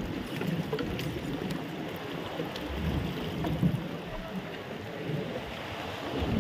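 Wind on the microphone and sea water: a steady, rough outdoor noise that rises and falls slightly, with no clear engine note or voices.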